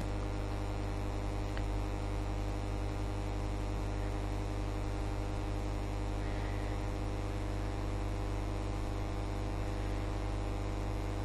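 Steady electrical mains hum: a low, buzzy drone that holds unchanged throughout.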